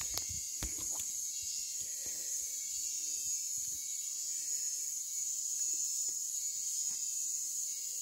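Steady high-pitched drone of forest insects, with a few handling knocks in the first second as the camera is set down.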